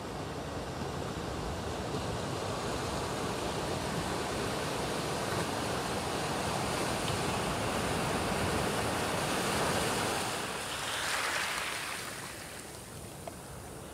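Pacific Ocean surf: waves breaking and foamy wash rushing over the beach. The rushing swells to its loudest about two-thirds of the way in, gives a hissing surge, then falls away near the end.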